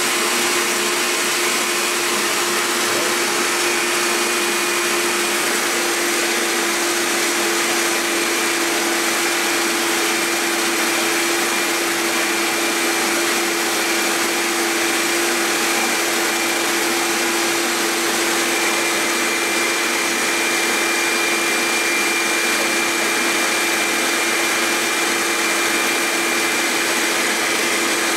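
Wagner Control Pro 250M airless paint sprayer's pump motor running steadily with a constant hum while priming, pushing the water out of the system through the spray gun as paint is drawn in.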